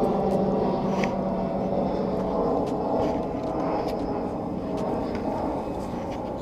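A steady engine drone with a low hum, slowly fading away.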